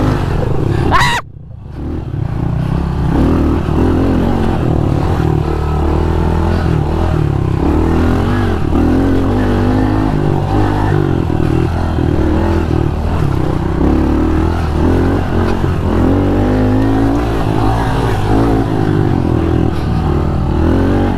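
Small four-stroke single-cylinder pit bike engine (Honda CRF110) revving hard, its pitch rising and falling continually as the throttle is worked. The sound drops away briefly about a second in, then runs on loud.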